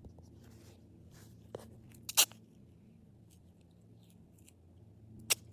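Handling noises as tape is put over a crack in a shield: faint rustling and small taps, with a short loud crackle about two seconds in and a sharp click near the end.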